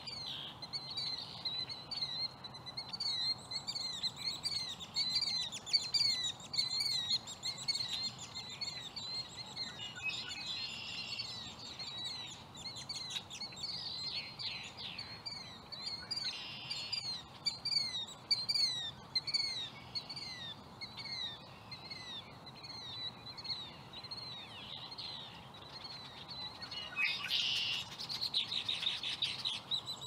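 Several red-winged blackbirds calling: a rapid, overlapping stream of short, downward-slurred chirps, broken now and then by harsher buzzy trills, the loudest one near the end.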